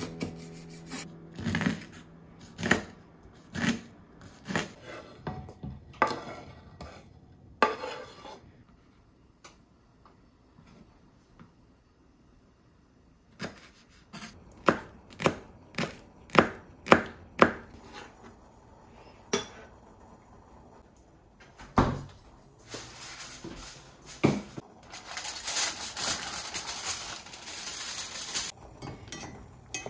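Kitchen food-preparation sounds. Sharp knocks of a knife or utensils on a board or dishes come about a second apart at first, then a quicker run of about seven knocks midway. A steady hiss follows near the end.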